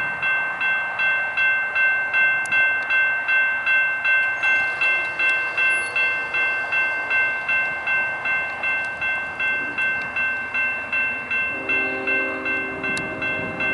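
Railroad grade-crossing bell ringing steadily at about three strikes a second as a freight train approaches. Near the end the locomotive's air horn sounds a chord under the bell.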